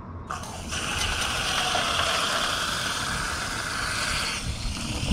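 Water rushing from a garden hose through a homemade sluice box, washing dirt and gravel over its mesh grate: a steady hiss that starts just after the beginning and stops about four seconds in.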